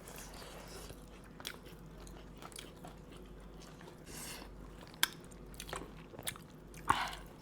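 Close-up eating of boiled shellfish: chewing and biting, with scattered sharp cracks and clicks of shell being broken, the loudest a little after halfway and near the end.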